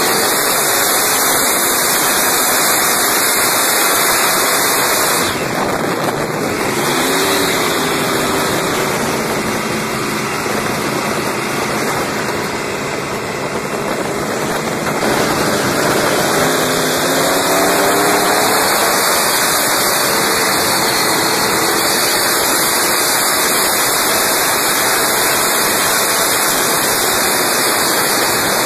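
Supercharged inboard boat engine with a roots-type blower running hard at speed, under a loud rush of water and wind. The engine pitch climbs twice, a little past a quarter of the way in and again past halfway.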